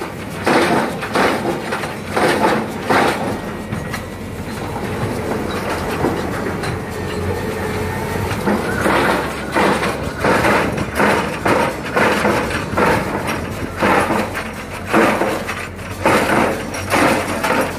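XCMG rotary drilling rig working its drilling bucket over a pile bore: the machine runs steadily under a rhythmic metallic clanking, about two knocks a second, which eases off for a few seconds before returning.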